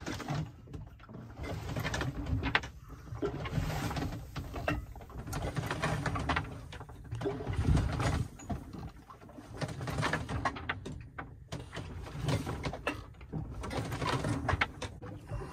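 Sailboat creaking and knocking as it pitches hard in a swell with no wind: rigging, fittings and hull working in surges about every two seconds, over a low wash of water.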